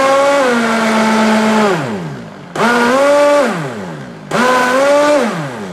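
Vitamix 5200 blender motor pulsed in short bursts: it runs, spins down with a falling whine about two seconds in, then starts twice more for about a second each, winding down after each. The large raw pumpkin chunks are too big for it, and it struggles without catching.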